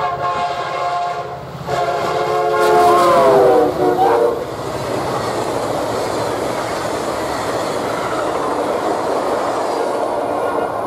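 Norfolk Southern SD60E locomotive air horn sounding two long blasts as the train closes in, the pitch dropping as the locomotives pass. This is followed by the steady rushing and clatter of passenger cars going by at high speed.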